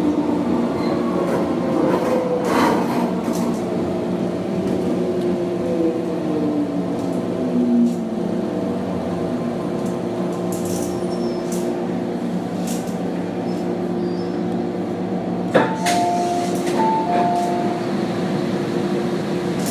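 Running sound inside a modernised MTR M-train car: the traction whine falls in pitch over the first several seconds as the train slows, then settles into a steady hum. About three-quarters through there is a sharp click, followed by a brief two-note tone.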